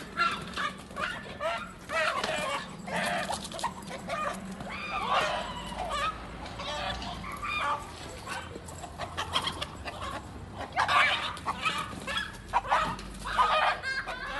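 Repeated shrill squawks and cries of a small animal in distress while a dog attacks it, coming in irregular bursts and loudest near the end.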